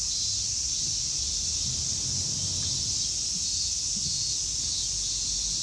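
A steady, high-pitched chorus of shrilling insects.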